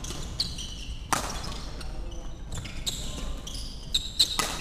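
Badminton rally: sharp racket strikes on the shuttlecock, a loud one about a second in and another near the end, with short shoe squeaks on the wooden court floor.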